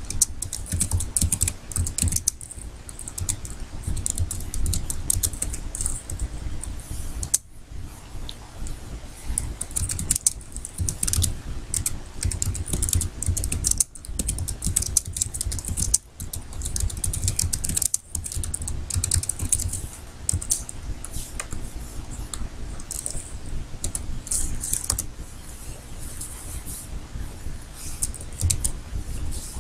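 Typing on a computer keyboard: a rapid run of keystroke clicks, with a few short pauses.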